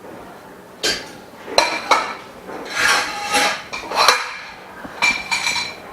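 Frame bars of a dust-free booth knocking and clinking together as they are handled and fitted, in a string of sharp knocks and short rattles.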